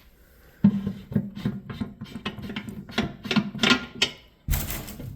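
Metal lathe parts being handled by hand: a run of irregular clicks and rattles starting about half a second in, then a louder clunk with a rush of noise near the end.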